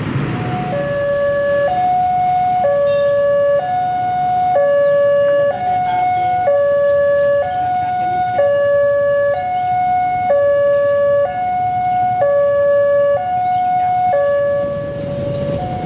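Railway level-crossing alarm sounding an electronic two-tone hi-lo signal, switching between two pitches about once a second, warning of an approaching train.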